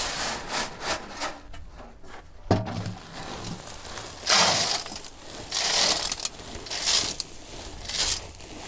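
Dry cattle feed being handled and mixed: a crunching, rustling sound that comes in strokes about once a second, with a single knock about two and a half seconds in.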